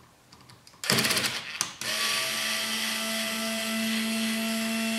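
Cordless power screwdriver backing out a gear cover screw on a Traxxas Stampede 4x4: a short rattle about a second in, then the motor runs with a steady whine.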